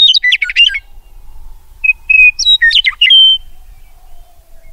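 Songbird singing loud, clear whistled phrases: a quick run of rapid notes, then held whistles and a second rapid run about two and a half seconds in, ending on a held note.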